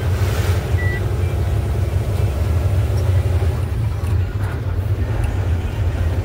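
Heavy goods truck's diesel engine running steadily under way, a deep continuous rumble. A brief hiss comes near the start.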